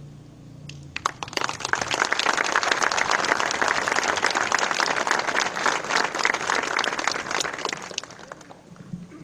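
Audience applauding. The clapping starts about a second in, holds steady and dies away near the end.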